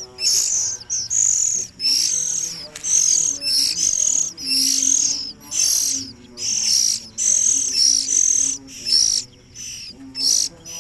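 Songbird chicks, oriental magpie-robin and bar-winged prinia nestlings, giving loud, high-pitched begging calls over and over, one shrill call about every half second to second, as they beg to be hand-fed.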